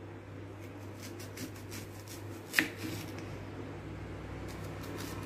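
Kitchen knife slicing a red onion into rounds on a wooden cutting board: a series of faint crisp cuts, with one sharp knock of the blade on the board about two and a half seconds in.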